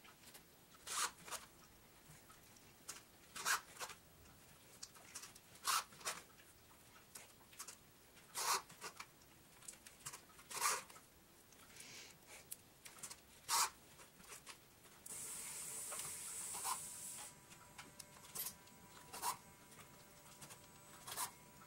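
Hand saddle stitching of vegetable-tanned leather: short, faint, scratchy rasps every two to three seconds as the awl goes through the leather and the thread is drawn tight. A steady hiss runs for about two seconds a little past the middle.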